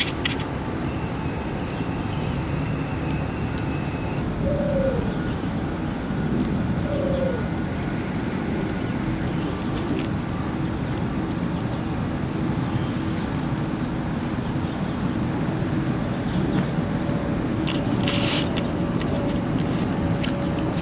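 Steady city traffic and street noise, with a couple of short gliding squeals about five and seven seconds in and a brief hiss near the end.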